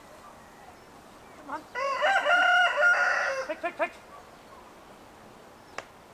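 A rooster crows once, a single call of about two seconds with a long held note that ends in a few short notes. A brief sharp click follows near the end.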